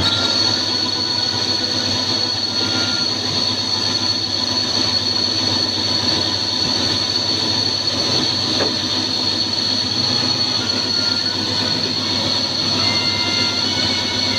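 Wintec TC15 CNC lathe running, with a steady high-pitched whine over a lower mechanical hum.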